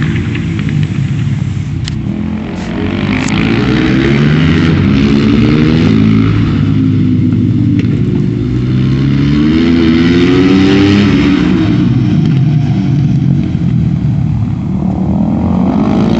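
Supermoto motorcycle engine revving, its pitch climbing and dropping again and again as the rider accelerates and shuts off.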